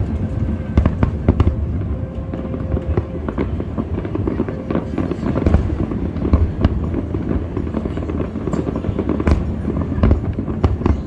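Aerial fireworks going off in quick succession: a dense run of bangs and crackles over a deep rolling rumble of booms, with a few louder reports about nine and ten and a half seconds in.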